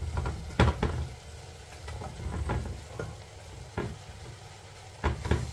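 Diced zucchini going into a pot where onion and chicken are sautéing in a little oil, with a faint sizzle. Several irregular sharp knocks of a utensil against the pot come as the zucchini is stirred in.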